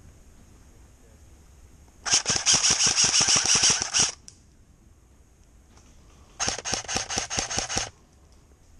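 Airsoft electric rifle (AEG) firing on full auto in two bursts of rapid shots: about two seconds, a pause of two seconds, then about a second and a half more.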